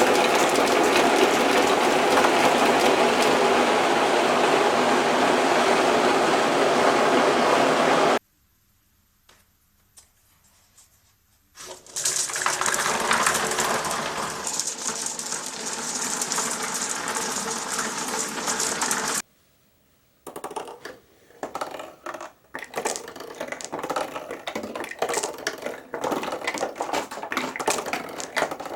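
Glass marbles rolling and clacking along a marble run: a dense, continuous rattle of many marbles at once, which cuts off abruptly, returns after a short quiet with a few clicks, and ends in irregular separate clacks and rattles.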